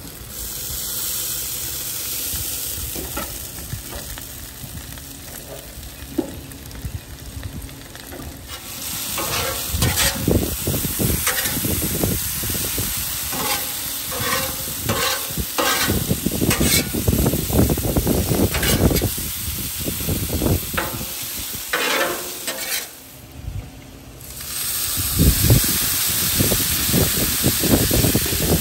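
Diced potatoes frying on a Blackstone griddle's flat steel top, sizzling steadily, with a metal spatula repeatedly scraping and clattering as the potatoes are turned. Near the end a splash of water hits the hot griddle, and the sizzle becomes a louder hiss.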